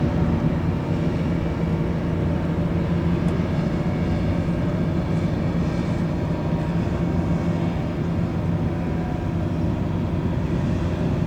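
A steady engine drone, running at an even pitch with no change in speed.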